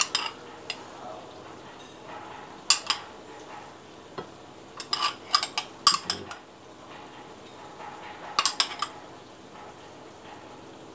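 Metal spoon clinking and scraping against a ceramic bowl while spooning out a mussel vinaigrette, in a few short runs of light clinks with quiet between.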